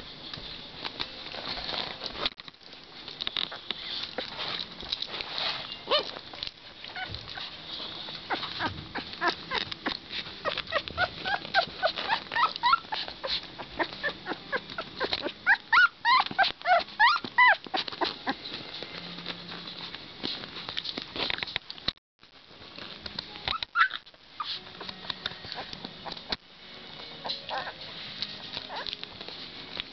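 Two-week-old puppies squeaking and whimpering, a quick run of short high cries that is loudest around the middle, over rustling and scratching on blankets.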